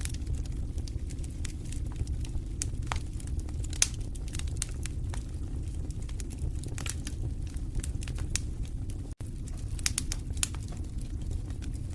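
Wood fire crackling in a fireplace: irregular sharp pops and snaps over a steady low rumble of the flames, with one louder pop about four seconds in. The sound cuts out for a split second a little past nine seconds.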